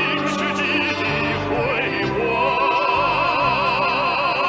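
Operatic male baritone singing a Chinese song over musical accompaniment. A little past halfway he settles into a long held note with a wide vibrato.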